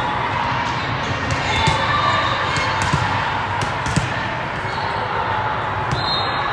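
Busy gym crowd chatter echoing through a large hall, with scattered sharp thuds of volleyballs being hit and bouncing on the floor.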